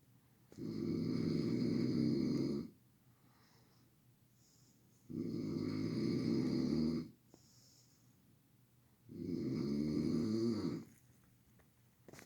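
A sleeper snoring loudly: three long snores, each about two seconds, coming about every four seconds with quiet breathing in between.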